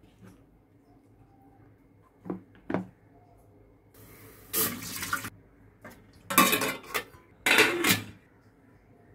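Aluminium steamer pot clattering and scraping on the gas stove, and its metal lid being set on, in three short bursts. Two light knocks come a couple of seconds earlier.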